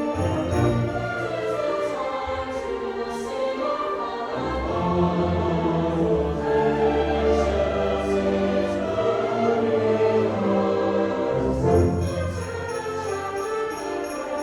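High school orchestra playing, with sustained melody and deep low notes; sleigh bells drop out about half a second in and come back near the end.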